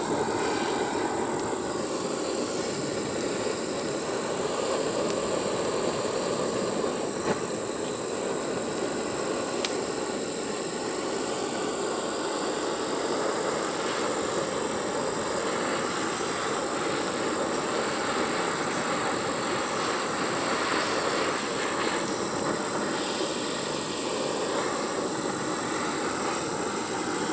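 Handheld butane torch running steadily, its flame singeing the fur off squirrel carcasses.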